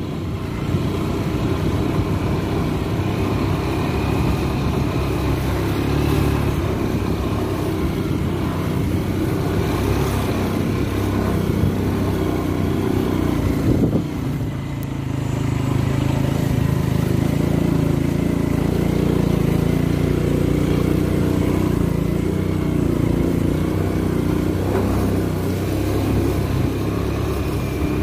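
Small motorcycle engine running steadily as the bike is ridden along a rough dirt trail, its pitch drifting a little with the throttle.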